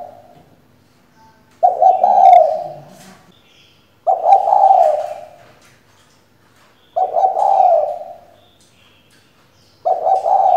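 Female spotted dove cooing in four short phrases, one every two and a half to three seconds, each starting sharply. It is a decoy hen's call, used to stir male spotted doves to answer.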